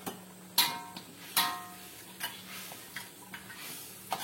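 A metal spoon knocking against a cooking pot: two sharp, ringing clinks about half a second and a second and a half in, then a few lighter taps and clinks.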